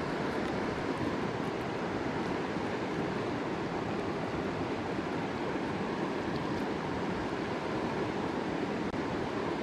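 Steady rush of river water running through rocky rapids.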